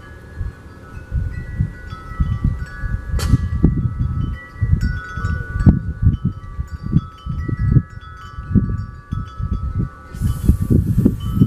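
Wind chimes ringing, many notes overlapping and ringing on, under irregular low thumps and rumbles that are the loudest sound.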